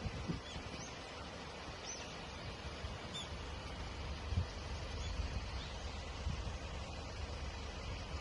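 Small birds giving short, high chirps every second or so, over a steady low rumble.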